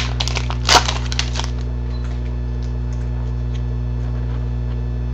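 Trading cards being handled and flipped through, with a couple of sharp rustles or flicks in the first second and a half and faint ticks after, over a steady low electrical hum.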